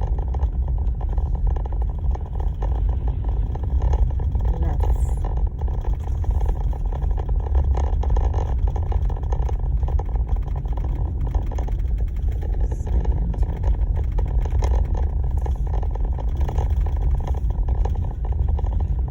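Car driving at a steady pace: a continuous low road and engine rumble with no change in speed.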